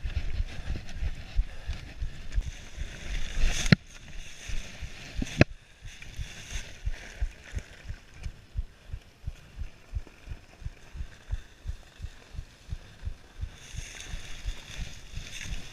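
Mountain bike riding on a leaf-covered dirt trail, heard through an action camera mounted on the bike: tyre and wind noise with a low thumping about two or three times a second. Two sharp knocks come about four and five and a half seconds in.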